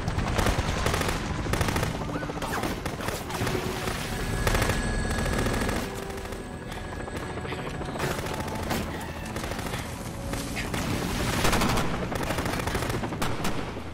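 Dense gunfire from a film battle scene: rapid bursts of automatic fire and single shots, many overlapping, over the low rumble of a helicopter.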